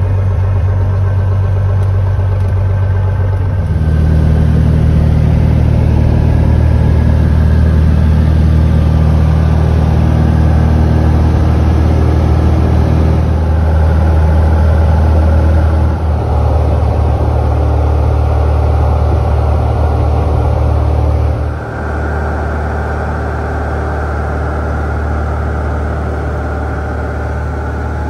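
Cessna 172's piston engine and propeller droning steadily, heard inside the cabin. About four seconds in the engine note steps up and gets louder as power comes up for the takeoff, then holds steady into the climb.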